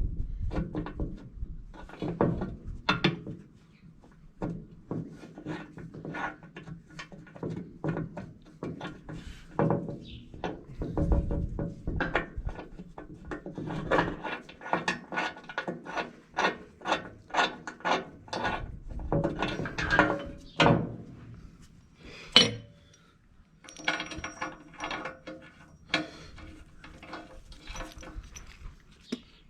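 Hand-tool work on metal: runs of quick clicks and knocks, several a second, broken by short pauses, with one sharp knock about 22 seconds in.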